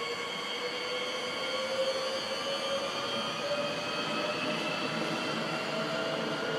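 Double-deck SNCF electric regional train accelerating past, its traction motors whining in several tones that rise slowly and steadily in pitch over the running noise of the wheels on the rails.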